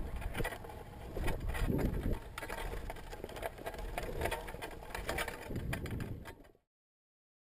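High-altitude balloon payload jostling on its tether under the parachute, recorded by the onboard camera: a steady rumble of buffeting with many irregular clicks and knocks of the rig. It cuts off abruptly about six and a half seconds in.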